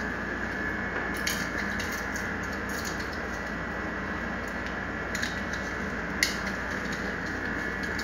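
A few light clicks and taps from hands handling a plastic push-button box and its cable, the sharpest about six seconds in, over a steady background hiss.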